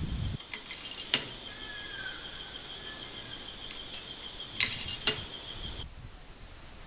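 Sharp metallic clicks from a Winchester 94/22 .22 lever-action's tube magazine being reloaded: one click about a second in, then a quick cluster of clicks near five seconds. Insects trill steadily and high-pitched throughout.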